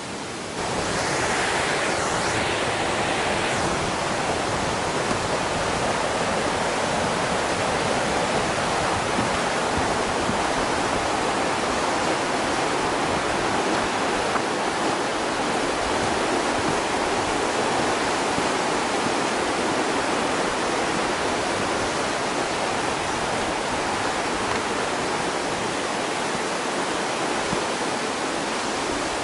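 A fast mountain river rushing over rocks, a steady, even sound of water.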